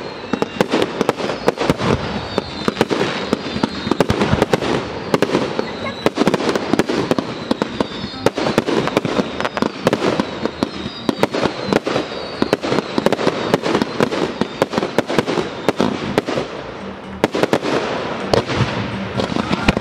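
Fireworks display in full barrage: a dense, continuous run of sharp bangs and crackle from bursting aerial shells, many reports a second, with no pause.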